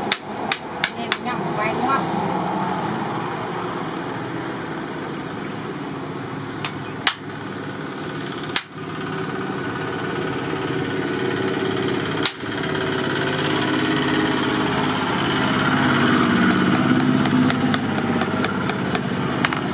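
Hand hammer tapping on a forged knife at an anvil: a few single metallic knocks early on, then a quick run of light strikes, several a second, in the last few seconds. A steady engine hum runs underneath.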